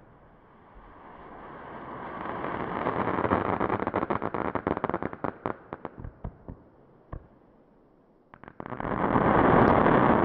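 El Gato Single Row Farfalla F3 firework cake firing: its whirling silver stars hiss, rising in level, then break into a dense crackling that thins out. About 8 seconds in, the next volley goes up with a few sharp cracks and another loud hiss.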